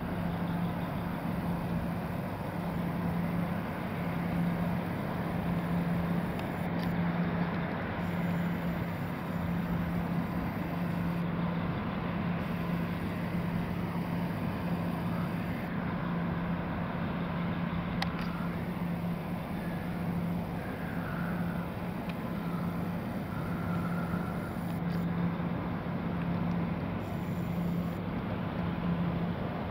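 Road-traffic noise at an intersection: a steady wash of vehicles running and passing, with a constant low hum underneath.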